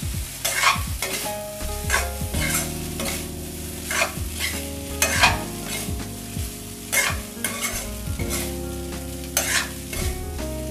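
Spatula stirring and tossing Maggi noodles with vegetables in a black iron kadai: repeated scrapes against the pan, about one a second, over the sizzle of the noodles frying.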